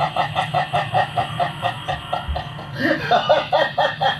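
A voice laughing in a long, rapid, even run of short syllables, about five a second, with a louder stretch about three seconds in, over a low steady hum.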